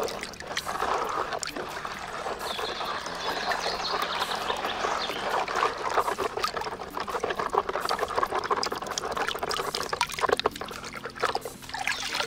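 Muddy water sloshing and splashing in a plastic basin as a hand swishes and scrubs a toy under the surface. Near the end the toy is lifted out and water pours and trickles off it back into the basin.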